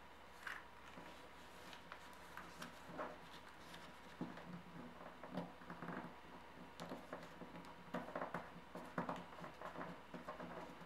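A square sheet of origami paper rustling and crinkling as hands fold and crease it: faint, irregular crackles that grow busier about halfway through.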